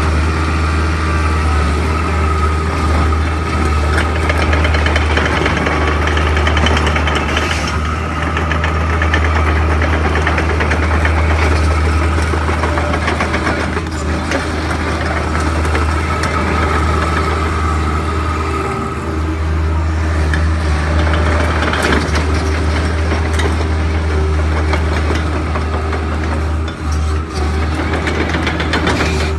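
Kobelco SK60-2 mini excavator's diesel engine running with a steady low drone while the machine swings its upper structure and works its boom and arm, the level swelling a little as it works and dipping briefly twice near the end.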